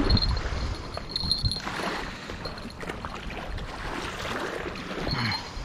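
Strong wind buffeting the microphone in a steady low rumble, with river water moving along the bank.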